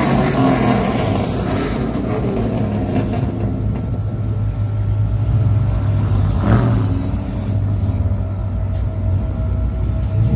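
Pickup truck engine running with a loud, deep exhaust rumble, surging louder once briefly about six and a half seconds in.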